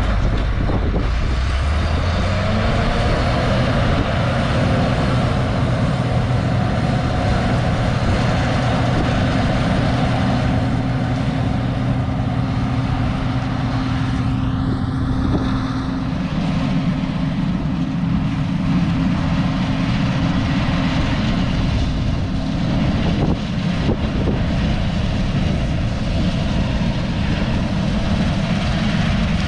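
Grain truck engine running steadily while driving, its pitch rising in the first couple of seconds and stepping up again about halfway through.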